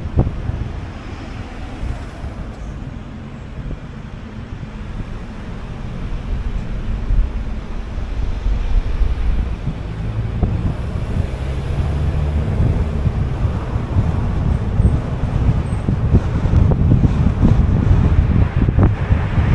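Moving car: low road and engine rumble with wind buffeting the microphone, growing louder through the second half.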